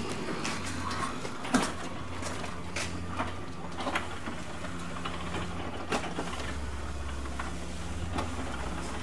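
A steady low machine hum with scattered sharp clicks and knocks, the hum shifting slightly lower about six seconds in.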